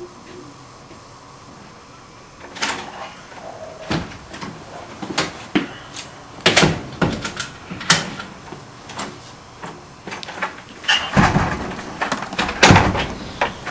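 Interior door with a round metal knob being opened and shut: a string of clicks and knocks from the knob and latch, loudest a few seconds in and again near the end.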